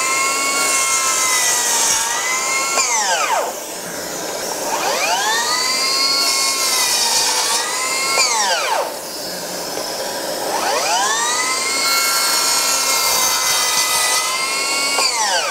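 Metabo HPT C1810DFA 18V cordless 10-inch miter saw's brushless motor whining up to speed, cutting through wood, then dropping quickly in pitch as the electric brake stops the blade, three times. A shop vacuum hooked to the saw's dust port runs steadily underneath.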